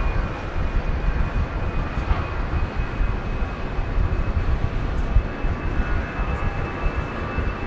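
Jet airliner's engines running: a steady high whine over a heavy low rumble.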